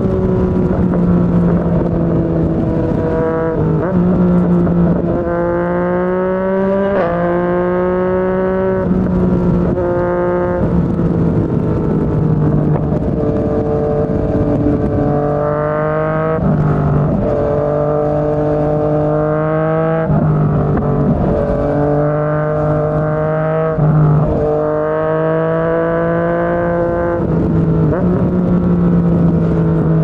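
Yamaha MT-09's three-cylinder engine through a Yoshimura R55 slip-on exhaust, riding under load. Its note rises steadily, then breaks off and drops suddenly, over and over through the stretch, as the throttle is rolled on and gears are changed.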